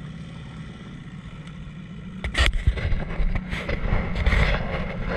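Small outboard motor running steadily as the boat moves along. About two seconds in, a much louder rushing noise with repeated knocks takes over, from wind and water spray hitting the boat and camera.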